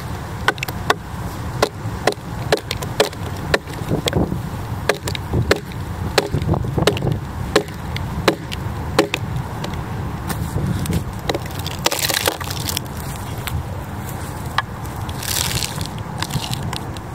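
Red oak log splitting apart along its length: wood fibres crack and snap in a quick run of sharp pops, thinning out after about ten seconds, with two longer hissing rustles near the end.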